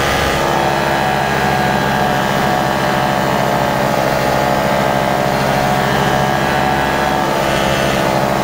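Paramotor's backpack engine and propeller running steadily in flight, a continuous drone holding one pitch.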